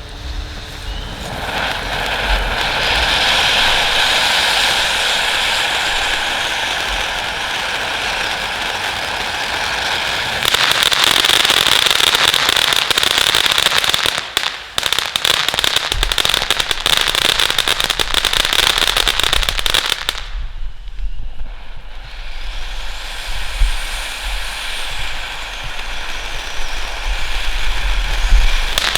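Vegas Baby! 500-gram fireworks fountain spraying with a steady hiss, then breaking into dense crackling about ten seconds in. It dies down briefly around twenty seconds in, then hisses and crackles again.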